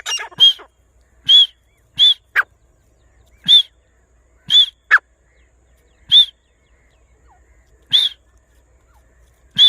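Grey francolin calling: a series of loud, sharp, high whistled notes, about eight in a little under ten seconds at uneven spacing, with two quick downward-sliding notes between them.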